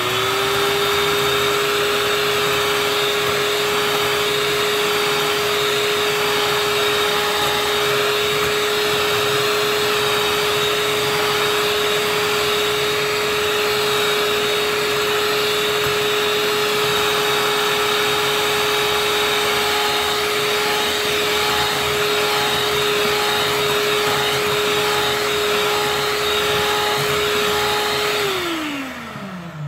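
Electric hand mixer running steadily at one speed, its beaters whirring through cake batter. Near the end it is switched off and the motor's pitch falls away as it winds down.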